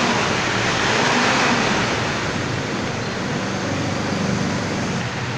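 Loud, steady crowd noise: many people talking at once in a busy room, blurred into a constant hubbub with no single voice standing out.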